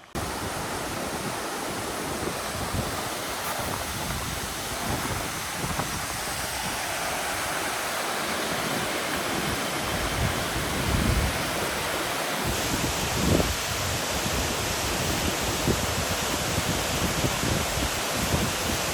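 Waterfall: water falling and rushing in a steady, loud roar.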